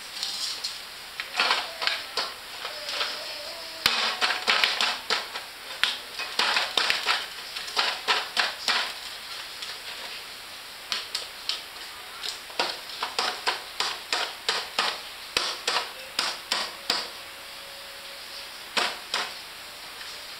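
A baby drumming with its hands on a metal butter-cookie tin: irregular runs of sharp taps, several a second, with brief pauses about ten seconds in and again near the end.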